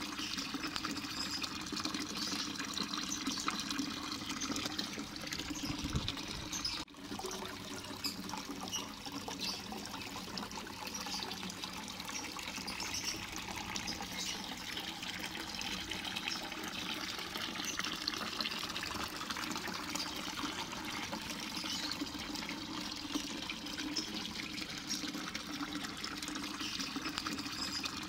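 Steady trickling, running-water noise, with a brief break about seven seconds in.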